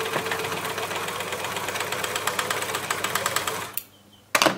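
Elna L4 overlocker (serger) running at a steady speed with a fast, even stitching rhythm as it sews through layered sweatshirt fabric over a bulky seam. It stops suddenly about three and a half seconds in, and a brief loud scuff follows near the end.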